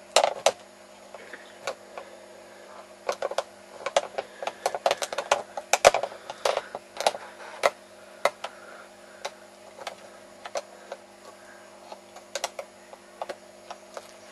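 Irregular sharp clicks and taps, several a second at times and sparser towards the end, over a steady low hum.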